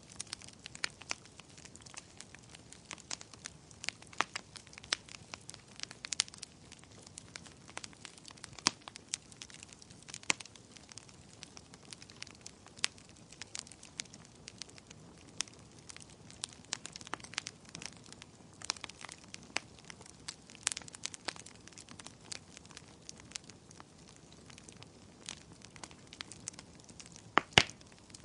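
Wood fire crackling: irregular sharp pops and snaps over a soft steady hiss of burning, with a louder double pop near the end.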